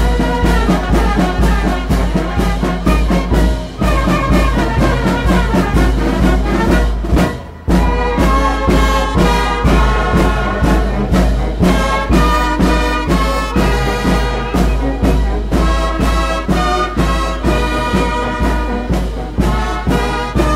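Brass band music with a steady beat, with trumpets and trombones carrying the tune. It pauses briefly about seven and a half seconds in.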